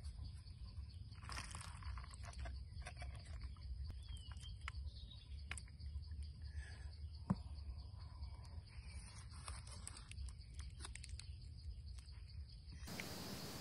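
Soft scattered clicks and crackles of food being handled: chili-garlic sauce spooned over grilled eel and the eel pulled apart by hand, over a low steady rumble. There is a faint bird chirp about four seconds in and one sharper click a few seconds later.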